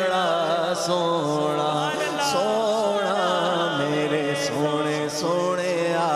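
A man singing a Punjabi naat solo into a microphone, drawing out long, winding held notes over a steady low drone.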